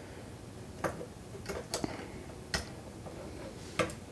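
Small sharp clicks as a CR123A lithium battery is handled and pressed into the plastic clip battery holder on a circuit board, about five clicks spread over four seconds.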